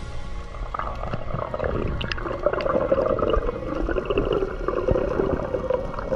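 Underwater sound picked up by a diving camera: a wavering drone that comes in about a second in, over low rumble, with scattered small crackling clicks.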